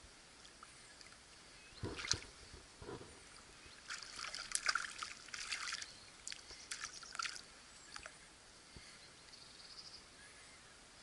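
Short bursts of water splashing at the surface as a small fish hooked on an ultralight spinning rig thrashes while it is reeled in. There is one dull knock about two seconds in, and most of the splashing falls between about four and seven and a half seconds in.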